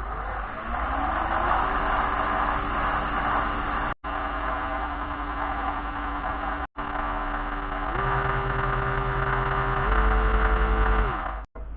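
Axminster 1628 wood lathe running, its motor whine rising as it spins up in the first second or so, then steady, stepping up in pitch twice near the end, with a rubbing hiss of wax being applied to the spinning pen blank. The sound cuts out briefly three times.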